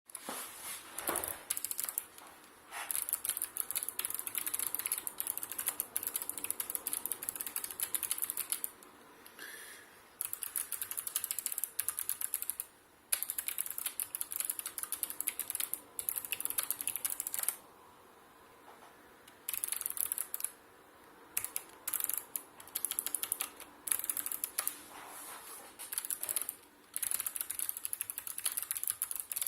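Typing on a Sharkoon PureWriter low-profile mechanical keyboard with clicky Kailh Choc Blue switches: fast runs of crisp key clicks, broken now and then by short pauses.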